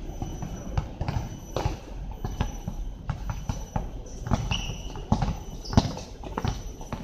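A basketball bouncing on a hard outdoor court in irregular thuds as players dribble and move, the loudest thud coming just before six seconds in.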